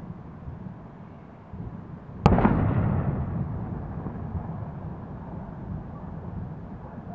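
Exploding munitions at an ammunition depot: a single sharp bang about two seconds in, followed by a rumble and crackle that slowly fade over several seconds, over a steady low rumble.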